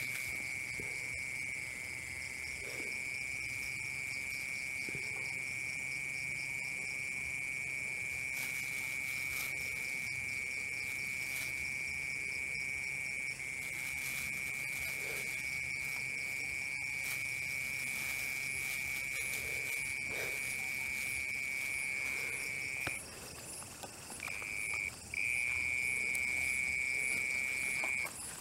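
An insect trilling in one steady, unbroken high note. It breaks off twice near the end, then stops. Fainter insects pulse rapidly in the background.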